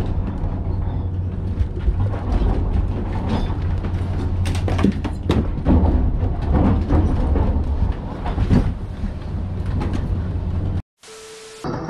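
Steady low drone of a ship's engines heard inside the wheelhouse, with repeated knocks, bangs and clattering from things being thrown about as the vessel rolls heavily in rough seas.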